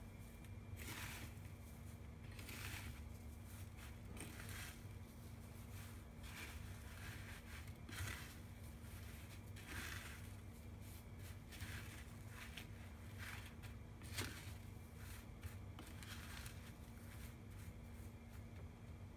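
Panko breadcrumbs rustling and crunching faintly as a hand presses them onto a horse mackerel fillet in a metal tray, in repeated soft strokes. A steady low hum runs underneath.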